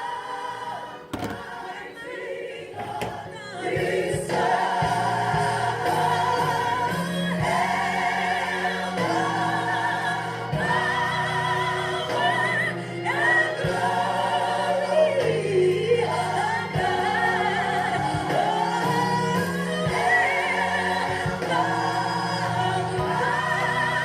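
Recorded gospel choir song playing: many voices singing together over a bass line, swelling louder about four seconds in.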